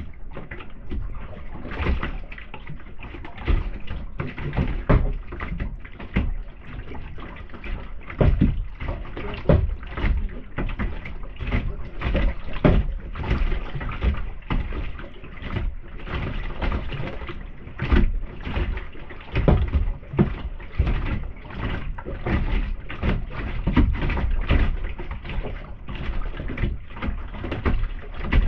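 Kayak paddling: paddle blades splashing into the water and knocking against the kayak's plastic hull in frequent, irregular strokes, with water slapping the boat.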